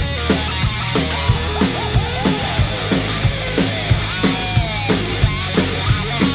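Hard rock played on a full drum kit along with a backing track: a steady driving beat with about three hits a second over bass guitar, and a lead guitar bending notes twice.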